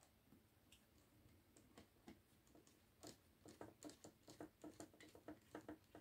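Faint, quick ticking as a small screwdriver backs screws out of a quadcopter's plastic body. A few scattered clicks come first, then from about halfway through a steady run of about five ticks a second.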